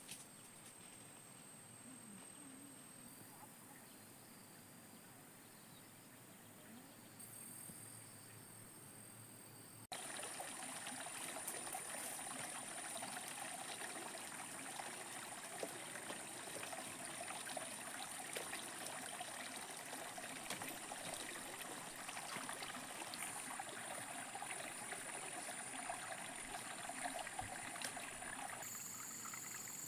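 A steady high insect drone over faint outdoor quiet. About ten seconds in it cuts to the louder, even rush of running water from a small stream over rocks, with the insect drone still above it.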